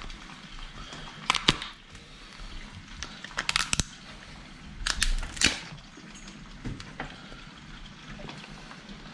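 A large cooked lobster's thick tail shell being cracked and pulled apart by hand: sharp crunches and snaps in three clusters, about a second and a half, three and a half and five seconds in, with a few lighter cracks after.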